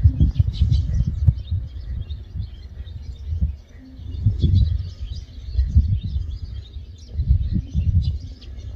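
Small birds chirping faintly and repeatedly in the background, over a low rumble that swells and fades every second or so.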